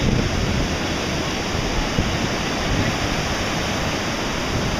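Steady rushing of ocean surf, with wind rumbling on the microphone.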